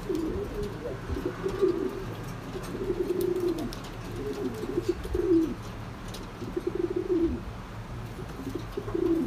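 Domestic racing pigeons cooing in the loft: about six low, rolling coos in a row, each lasting around half a second to a second.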